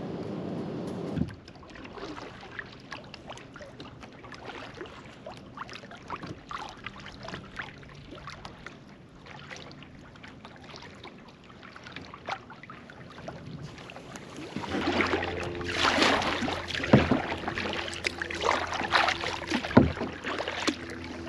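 Kayak paddling: paddle blades dipping and splashing, with water dripping and lapping at the hull. It is soft at first and much louder and closer over the last several seconds, where a low steady hum runs underneath. A steady hum in the first second cuts off abruptly.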